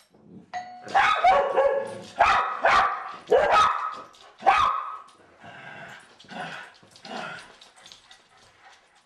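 A doorbell chime about half a second in, then a dog barking in answer to it: a string of loud barks over the next few seconds that thin out and grow quieter after about five seconds.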